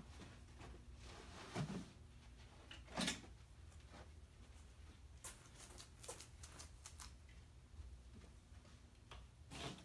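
A few soft knocks and thumps over quiet room tone, from a small child handling toys at a shelf and moving about.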